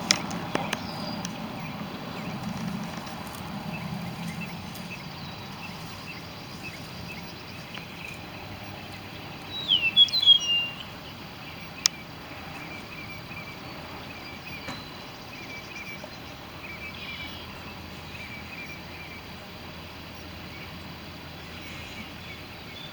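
Outdoor birdsong: a quick run of short, curving chirps about ten seconds in, then faint repeated chirps. A single sharp click comes a little after the loud chirps.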